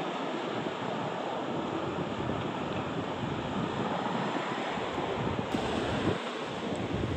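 Twin-engine jet airliner climbing away after takeoff: a steady rushing engine noise, with wind buffeting the microphone in gusts.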